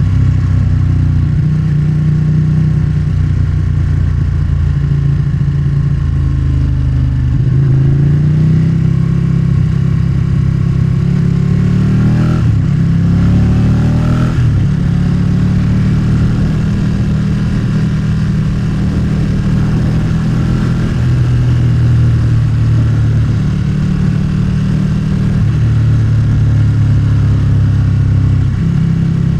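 Motorcycle engine running under way, picked up by the rider's own microphone, its pitch stepping and gliding with the throttle and gear changes, with a few quick rising sweeps of revs about halfway through.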